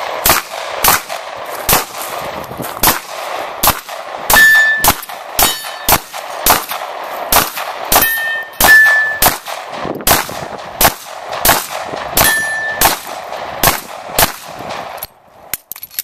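Semi-automatic pistol firing a long string of shots, about two a second, several of them followed by a brief high ring of steel targets being hit. The firing stops about a second before the end.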